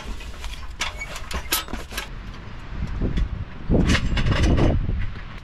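Camping gear being handled: a few light clicks and clinks from a small wire grill in its case over a low rumble, then about a second of loud rustling and knocking as other gear is moved.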